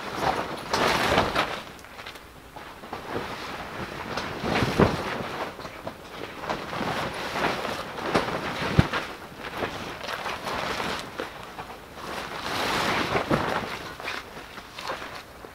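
Nylon fabric of a pop-up hub tent rustling and flapping in swells as its sides are pulled out and opened, with a few sharp knocks.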